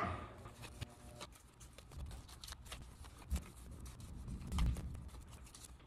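Sticky notes being peeled off a pad and pressed one after another onto a plush stuffed toy: quick, faint paper rustles and ticks, with a couple of duller thumps from hands patting the plush.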